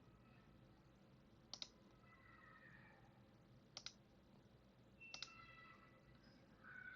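A few faint, sharp computer clicks, three times, some of them doubled, over near-silent room tone.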